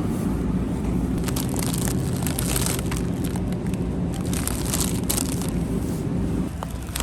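QLine streetcar running: a steady low rumble with rattling and clicking, stopping shortly before the end.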